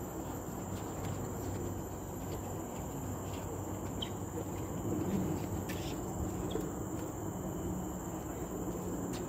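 Insects in the forest canopy trilling in one steady, high-pitched drone over a low, even background noise.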